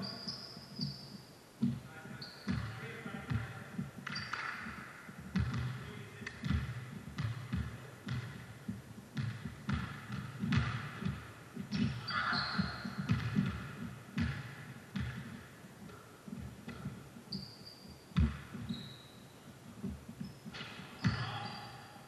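Basketball game play on an indoor court: the ball bouncing and feet thudding in an irregular run of thumps, with short high squeaks of sneakers on the floor every few seconds and faint shouting from players.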